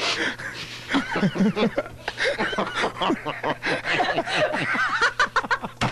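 Several people laughing hard into studio microphones, in overlapping bouts of snickering and chuckling, heard on an off-air radio recording.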